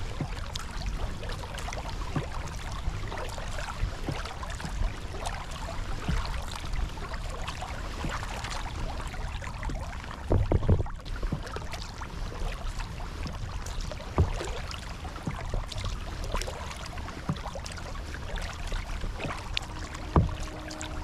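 Water rushing and rippling along a sea kayak's hull as it is paddled over calm sea, over a low rumble, with scattered light knocks and a louder burst about halfway through.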